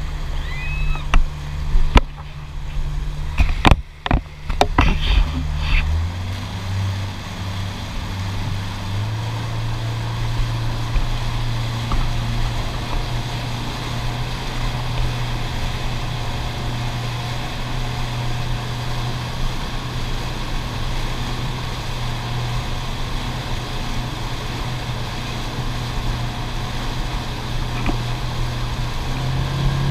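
Outboard motor pushing a boat under way while towing, with water rushing in the wake behind it. A few sharp knocks come in the first five seconds; between about six and nine seconds in the engine note climbs, then holds steady, rising again at the very end.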